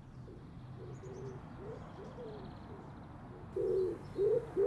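A pigeon cooing in a run of short, soft, rounded coos, faint at first and louder near the end.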